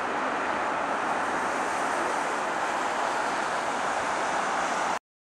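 Boeing 747-436 airliner's four Rolls-Royce RB211 jet engines, a steady rushing noise as the jet rolls out along the runway just after touchdown. The sound cuts off abruptly near the end.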